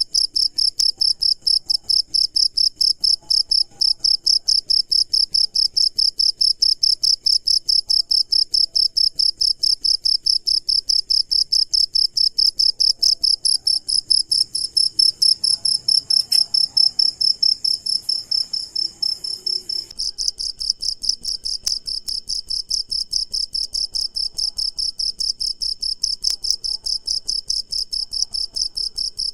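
A cricket chirping close by in a steady, even rhythm of about four high-pitched chirps a second.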